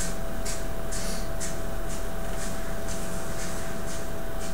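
Steady classroom room tone: an even hiss with a faint constant hum and soft, regular high-pitched puffs, with no other event.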